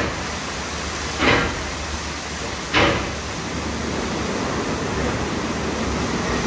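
WashTec SoftCare Pro rollover car wash in its brush wash with high-pressure wheel wash: a steady hiss of water spray and spinning cloth brushes, with three short louder swishes about a second and a half apart in the first three seconds.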